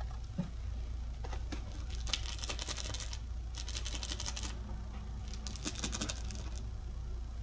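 Plush toy shaken by hand, giving three short bursts of fast rattling ticks, over a steady low hum.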